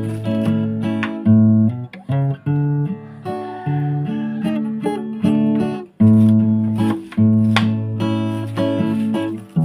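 Background music: strummed acoustic guitar playing a steady run of chords.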